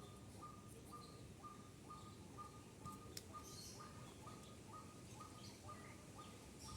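Faint, near-silent background with a bird repeating a short single-pitched call about twice a second, steady throughout, plus a few faint higher chirps.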